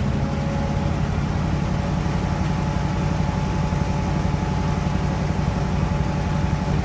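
Engine of a ZIL aerial-ladder fire truck running steadily at a low, even idle, with a faint steady whine above it.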